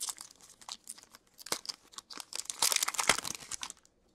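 Foil hockey-card pack wrapper crinkling and tearing as it is opened by hand, in several short crackly bursts, the longest and densest about three seconds in.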